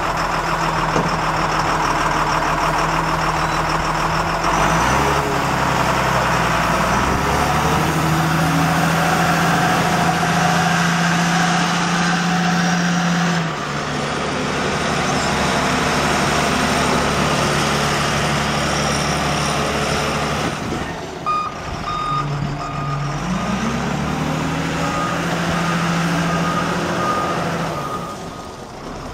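Caterpillar 950F Series II wheel loader's six-cylinder diesel engine running as the machine drives and manoeuvres, its revs rising and falling several times. In the later part a backup alarm beeps steadily while it reverses.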